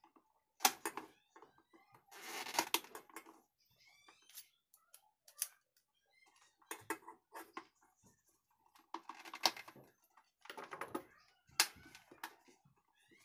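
Irregular clicks, knocks and short scraping rattles of small hard parts being handled and worked on, coming in clusters a few seconds apart.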